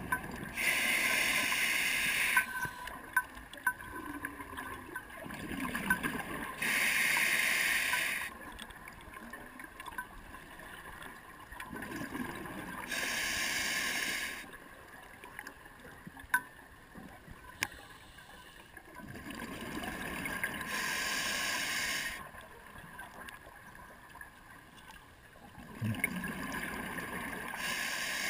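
A scuba diver breathing through an open-circuit regulator underwater: a rush of air and bubbles comes about every six seconds, five breaths in all, with quieter hiss between them and a few faint clicks.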